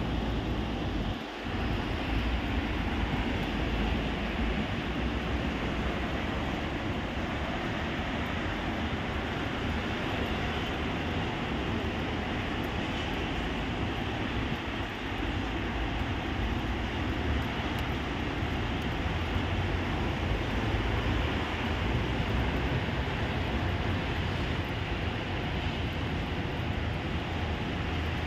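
Steady rushing noise of heavy rain and wind, with wind rumbling on the microphone.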